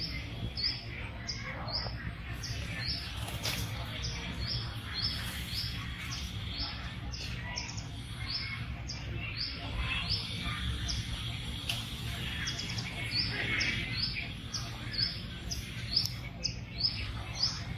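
A bird repeating a short, high, falling chirp at an even pace, about twice a second, over a steady low background hum.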